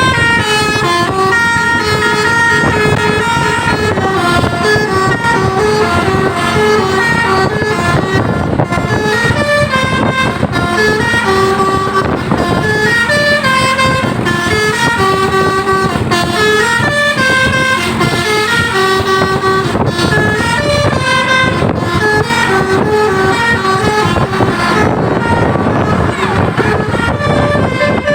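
Basuri musical air horns on a bus playing a 'telolet' melody: a long run of loud horn notes stepping up and down in pitch, over a steady noisy rumble.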